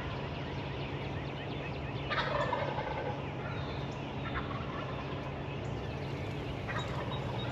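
Wild turkey toms gobbling: one loud rattling gobble about two seconds in, then shorter, fainter gobbles twice more.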